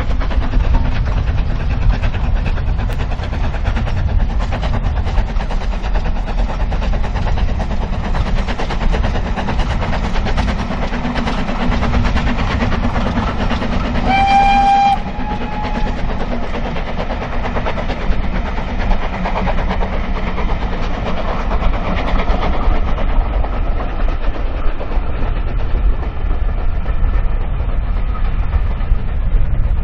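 Steam locomotive working hard as it hauls a passenger train past, its exhaust and the rumble of the wheels running on steadily, then the coaches rolling by. About halfway through it gives one short whistle of about a second, stepping slightly higher at its end.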